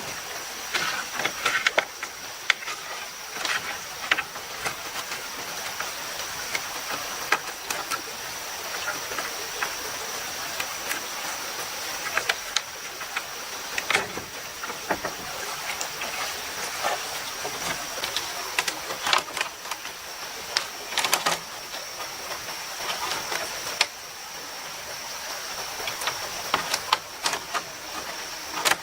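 Steady rush of a flowing stream with a constant high-pitched whine over it, and irregular light knocks and clicks of handwork scattered throughout.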